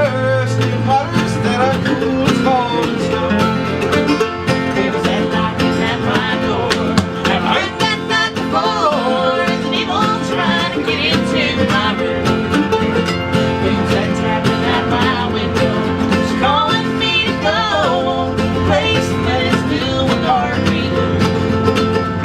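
Acoustic bluegrass band playing live: strummed guitar and other plucked strings under a wavering melody line, carrying on steadily.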